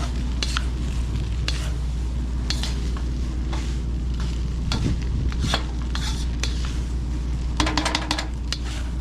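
Fried rice sizzling in a hot pan while a metal utensil stirs and scrapes it, in strokes about once a second, with a quick clatter of metal on the pan near the end. A steady low hum runs underneath.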